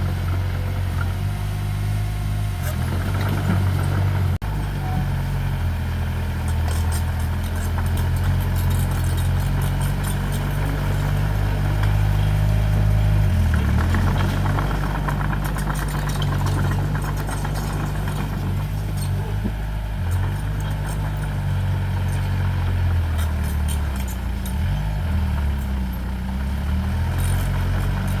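Diesel engine of heavy earthmoving equipment running steadily, its pitch dipping briefly a few times as it takes load. A run of fast clicks sounds over it in the middle.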